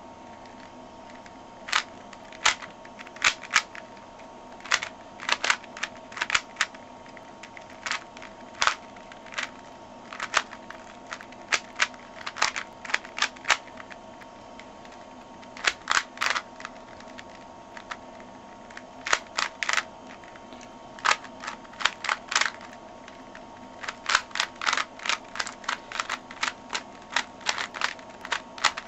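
Plastic Rubik's Cube layers being twisted by hand: quick runs of clicking turns with short pauses between them, over a steady faint hum.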